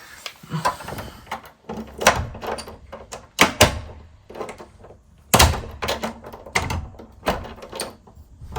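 Irregular knocks and clunks of lock hardware being handled and fitted against a door. The sharpest come about two, three and a half, and five and a half seconds in.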